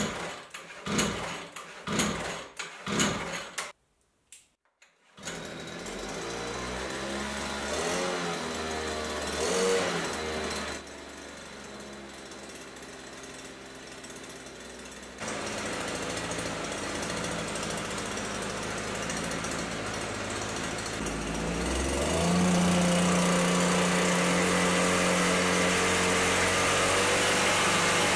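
A small brushcutter engine is pull-started with a few quick tugs, catches about five seconds in and runs. It is revved up and down, settles, steps up about ten seconds later, and is then throttled up and held steady at a higher, louder speed near the end.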